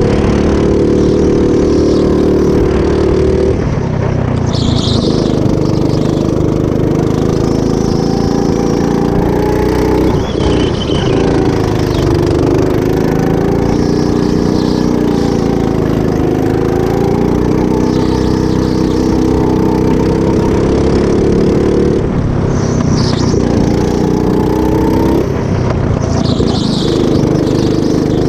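Go-kart engine heard from the driver's seat at racing speed. Its pitch drops several times as the kart slows for corners, then climbs again on the straights.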